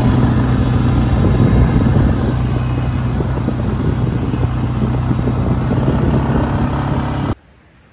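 A Suzuki four-wheeler ATV's engine running steadily under way, with a constant low hum. It cuts off suddenly near the end.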